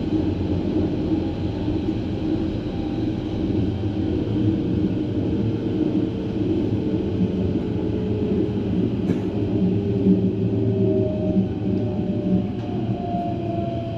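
Berlin S-Bahn class 481 electric multiple unit running between stations: a steady rumble of wheels on the track, with a faint electric whine from the traction drive gliding slowly in pitch. A single sharp click comes about nine seconds in.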